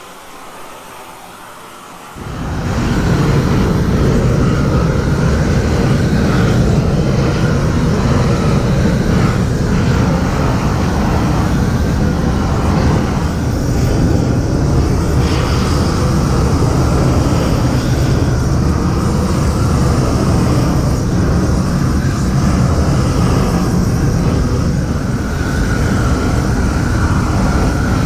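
GrillBlazer GrillGun propane torch running at a loud, steady roar as its flame is swept over the soil of a raised bed. It comes up sharply to full strength about two seconds in, after a quieter start.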